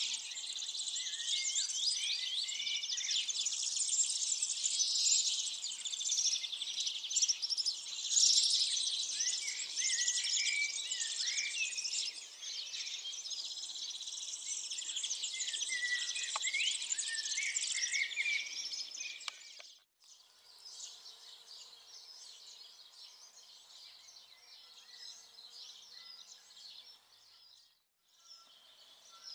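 Many small birds chirping densely together, with a high, steady insect-like buzz underneath. About two-thirds of the way in the sound cuts off abruptly, and fainter, sparser birdsong follows, broken by another brief cut near the end.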